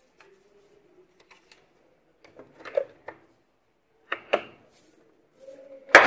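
Plastic top cover of an LG top-loading washing machine being set back in place and pressed down by hand: a few scattered clicks and knocks of plastic on plastic, the loudest at the very end.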